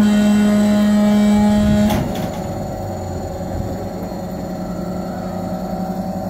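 Steady machinery hum with a strong low tone, which cuts off sharply about two seconds in, leaving a softer, lower hum.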